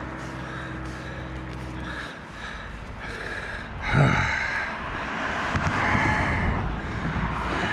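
A vehicle engine's steady low hum that stops about two seconds in, then a loud breathy exhale close to the microphone about four seconds in, with more heavy breathing after it.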